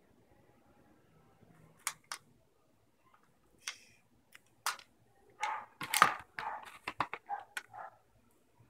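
Sharp plastic clicks and snaps from handling an SJ4000 action camera in its waterproof case: a few single clicks, then a quick run of clicks and rustling over the last few seconds, the loudest snap about six seconds in.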